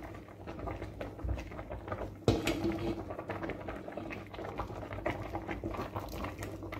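Spatula stirring hot milk and vermicelli in a stainless steel pot as a cornstarch slurry is poured in slowly: a steady wet patter of stirring, with one sharp knock about two seconds in.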